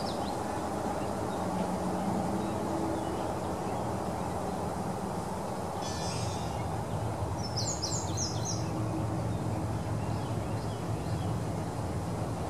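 Outdoor ambience: a steady low background noise, with a few short high bird chirps about six and eight seconds in.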